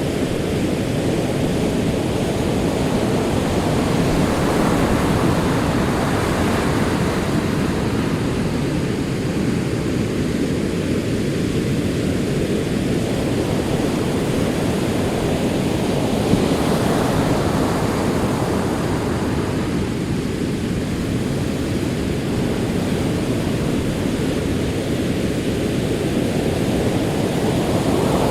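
Sea waves on a shore: a continuous rush of surf that slowly swells and ebbs, with a fresh wave breaking about halfway through and another near the end.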